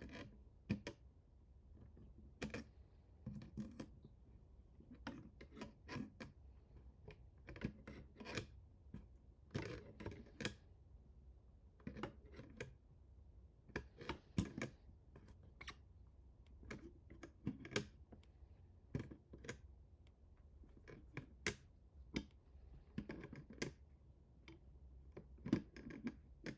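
Irregular clicks, taps and light scraping of small hard parts being handled, a few every second with short pauses, over a faint steady low hum.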